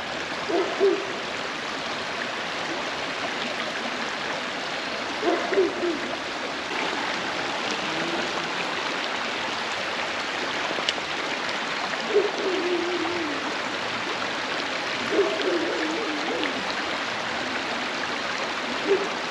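Creek water running steadily over stones, with a distant dog barking now and then: short calls a few seconds apart, one a little longer and falling in pitch.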